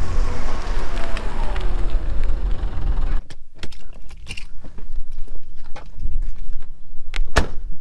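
Supercharged 2000 Mercedes C230 running right beside the microphone for about three seconds, cutting off abruptly. Then come light clicks and rattles of keys and the car's door and interior, with one sharp click near the end.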